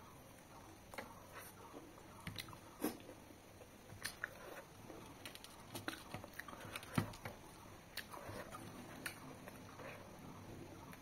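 Close-up chewing of a mouthful of rice and mutton curry eaten by hand, with many irregular sharp mouth clicks.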